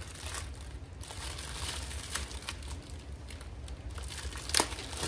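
Plastic wrapping crinkling as hands unwrap new gauge lenses: faint scattered crackles, with one sharper crackle near the end.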